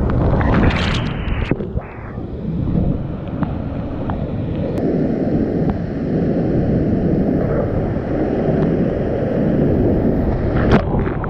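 Whitewater rapids rushing loudly around a kayak, heard close up through a GoPro action camera, with heavy splashing of spray over the boat and camera in the first second or so and again near the end.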